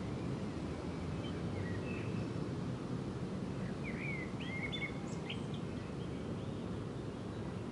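Outdoor ambience: a steady low background rumble, with a few short bird chirps around the middle.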